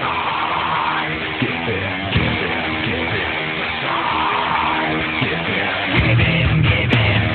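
Rock music with electric guitar, growing louder and heavier in the bass about six seconds in.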